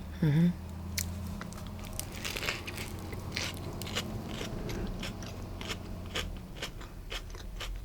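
Close-miked biting and chewing of a sourdough sandwich, with many sharp crunching clicks from the bread throughout.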